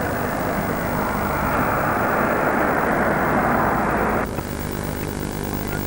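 A steady rushing noise over a low electrical hum, cutting off abruptly a little past four seconds in and leaving the hum alone.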